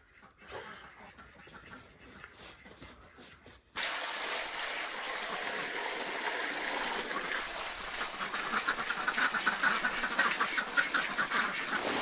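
A flock of ducks quacking, with water poured from a bucket splashing into a pan. The sound starts abruptly about four seconds in, after a few seconds of faint sound, and the quacking grows denser near the end.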